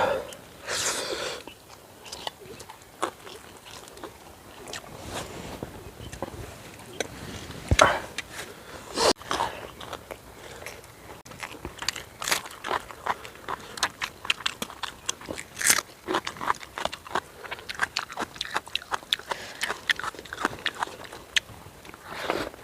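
A person biting into and chewing burnt, charred tandoori chicken: many short crunches at an irregular pace, a few of them louder.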